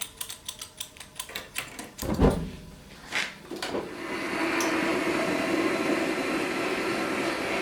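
Forge starting up: a run of rapid clicks, two loud whooshing thumps, then a steady roar from about four seconds in.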